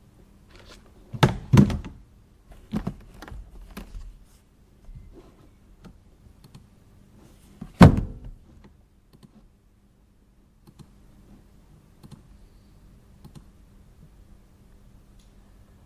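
Dull thunks of objects being knocked or set down on an office desk: a quick cluster of knocks in the first few seconds and one loud thunk about eight seconds in, then only faint light clicks.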